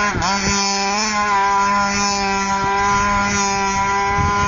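Radio-controlled Baja buggy's small engine running at a steady high speed, a loud buzz that dips briefly in pitch just after the start and then holds its pitch.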